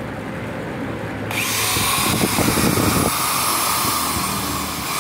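A Japanese-market 100 V Ryobi corded electric drill switched on about a second in, its motor spinning up and then running steadily at full speed with a high whine.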